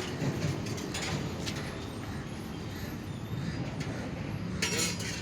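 A motor or engine running with a steady low hum, under several short metallic knocks or clanks, the loudest of them near the end.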